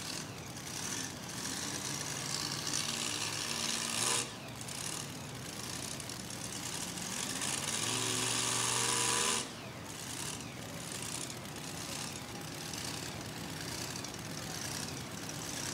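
Supercharged engine of a two-wheel-drive pulling truck running flat out while it drags a pulling sled, its pitch climbing, with a heavy hiss over it. The sound cuts off abruptly about four seconds in and again about nine seconds in, starting afresh each time.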